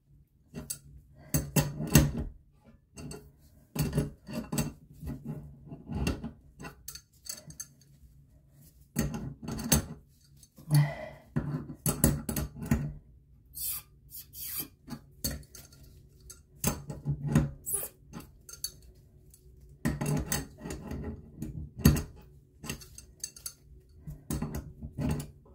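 A wrench clinking and knocking against the metal fittings of a braided steel water supply hose as the connection under a toilet tank is tightened: irregular clusters of sharp metallic clicks with short pauses between them.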